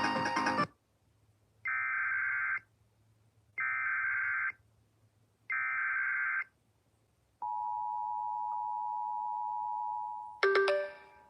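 Emergency Alert System broadcast tones: three one-second bursts of SAME header data warble, about two seconds apart, then the steady two-tone EAS attention signal. About ten seconds in, a sudden loud ringing sound breaks in over the tone and fades. Music cuts off just after the start.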